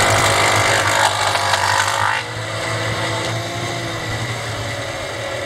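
Wood thickness planer with freshly sharpened blades running and cutting a board, a steady motor hum under a loud rasping cut. About two seconds in the cut ends and the machine runs on more quietly.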